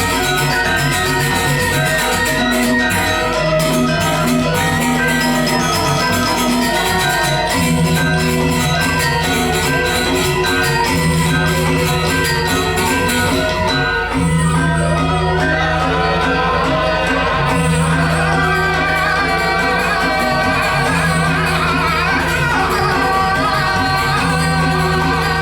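Balinese gamelan playing: metal-keyed percussion ringing in busy, steady patterns over long low tones that come in and out every two to three seconds from about a third of the way in.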